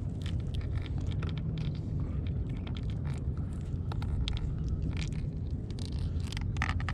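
Steady low rumble with many small, scattered clicks and rustles as a small live baitfish is handled and hooked through the nose.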